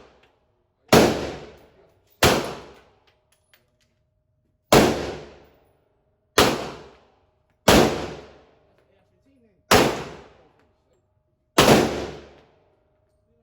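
Seven gunshots fired one at a time, one to two and a half seconds apart. Each is a sharp crack that trails off in an echo lasting about a second.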